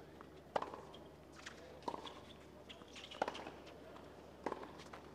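Tennis ball being hit back and forth with rackets in a doubles rally: four sharp hits, about one every second and a quarter, with fainter ticks in between.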